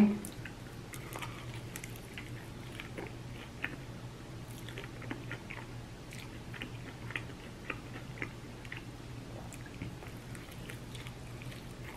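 Close-up sloppy chewing, with frequent small wet mouth clicks and smacks scattered throughout, over a steady low hum.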